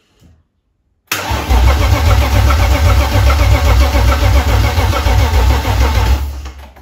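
Starter motor cranking a BMW M52B30 straight-six stroker engine with its spark plugs in but no coil packs, so it turns over without firing, building compression with an even rhythm. Cranking starts about a second in and stops shortly before the end. It sounds healthy, with good compression and without the knocking noise.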